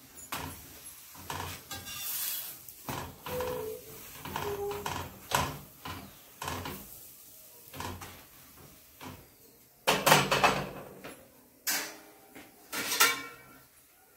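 Perforated metal spatula scraping and pressing a paratha against an iron tawa in irregular strokes, the loudest scrapes about ten seconds in and again near the end.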